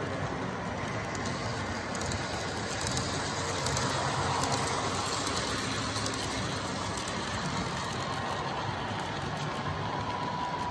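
HO scale model trains running: electric motors humming and small wheels rolling over the track with light clicking, swelling a little around four seconds in as a train passes close.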